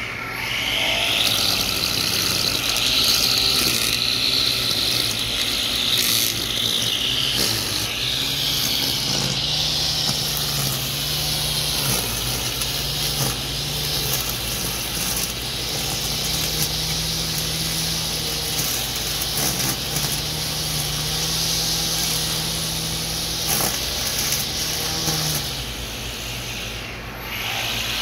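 A 2.2 kW 320Kv 5065 brushless outrunner motor on a 6S LiPo spins a 3D-printed grass trimmer's cutting head up to speed in about the first second. It runs steadily, with a high whine over a lower hum and the noise of the head cutting grass. The motor dips briefly near the end, then speeds back up.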